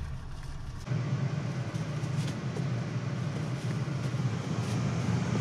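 Steady low rumble and hiss inside a parked car's cabin, getting louder about a second in.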